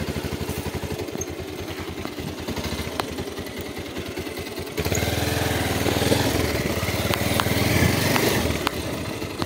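Motorcycle engine running at low revs with an even beat, then opened up to run harder and louder about five seconds in.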